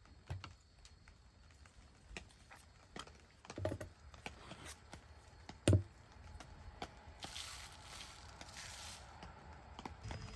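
Light knocks and clinks of coffee gear being handled on a wooden table: a stainless steel pour-over dripper set on its stand and a hand coffee grinder taken apart, with two sharper knocks in the middle and a short scraping hiss about three-quarters of the way through.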